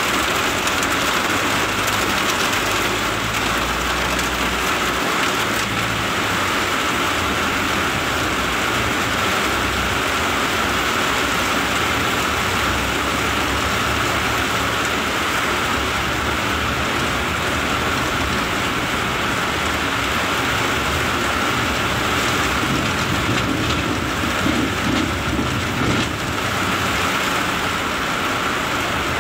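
Heavy tropical rain beating steadily on a moving car, heard from inside the cabin, with a low rumble of engine and tyres on the wet road underneath.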